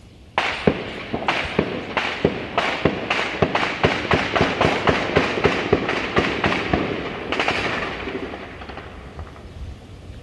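Heavy gunfire: a long volley of many shots in quick, irregular succession, starting about half a second in and thinning out after about eight seconds.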